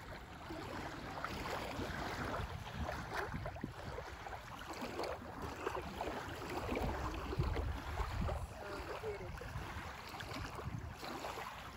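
Wind buffeting the microphone in uneven low gusts, with small waves lapping at a sandy lake shore.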